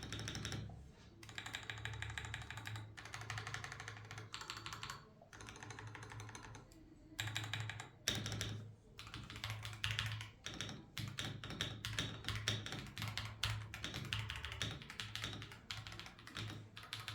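Akko Dracula Castle 5075B Plus mechanical keyboard being typed on fast as a sound check: quick runs of key clicks with short pauses between them, over a low hum.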